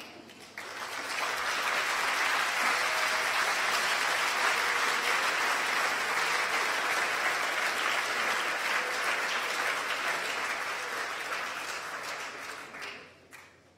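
Audience applauding: the clapping starts about half a second in, swells quickly, holds steady, and dies away near the end.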